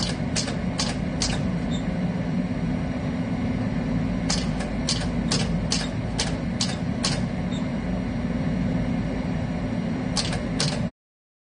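Air conditioner running with a steady hum, broken by loud bangs in runs of about two to three a second with pauses between the runs; the sound cuts off suddenly near the end. The unit is not cooling.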